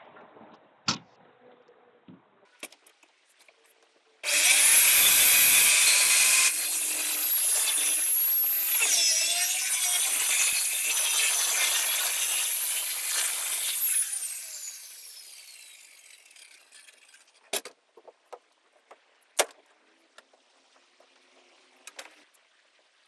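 A handheld power tool starts suddenly about four seconds in and cuts at high speed for about ten seconds, its high whine dipping briefly as it bogs under load. It is then switched off and winds down over a couple of seconds, and a few sharp knocks follow.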